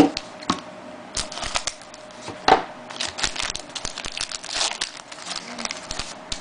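Trading-card pack wrapper crinkling and tearing as the pack is opened, and cards being handled: a run of irregular sharp crackles and clicks.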